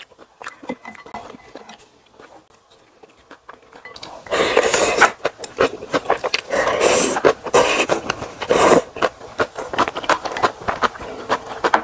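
Instant ramen noodles slurped off a ladle: after a few quiet seconds come four loud slurps over about five seconds, then chewing and small clicks of utensils.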